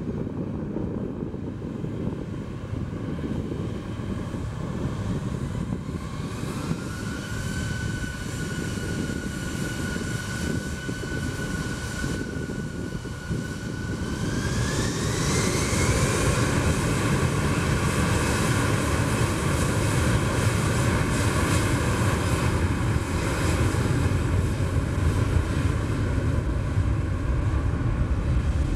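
Airbus A340-313's CFM56-5C turbofans spooling up: a steady jet whine over a deep rumble. The whine rises in pitch about six seconds in, holds, then rises again about fifteen seconds in as the rumble grows louder.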